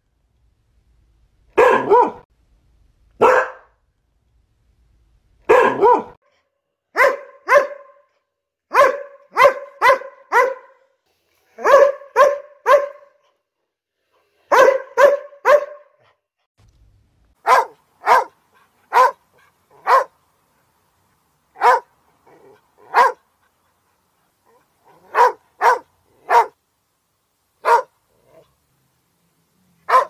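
A dog barking over and over: single sharp barks and quick runs of two to four, with short pauses between.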